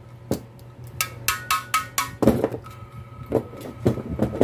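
Ceiling fan motor's rotor being spun by hand, with a dozen irregular metallic clicks and knocks, some ringing briefly, over a steady low hum.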